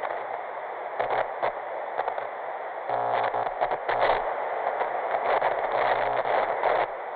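Static hiss like a detuned TV or radio, broken by short buzzing glitch bursts about a second in, around three to four seconds in, and again between five and seven seconds.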